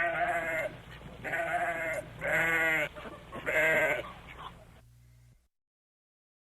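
Goat bleating four times, each call a short wavering bleat.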